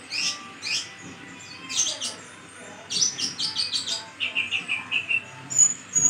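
Kolibri ninja (konin), a caged sunbird, singing vigorously: sharp high chirps and short falling notes, then a rapid run of about eight notes around halfway through, a lower, quicker trill of about six notes after it, and thin high whistles near the end.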